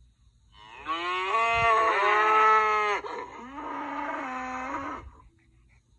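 Cattle mooing: one long, loud moo starting about half a second in and lasting some two and a half seconds, then a quieter, lower call that ends about five seconds in.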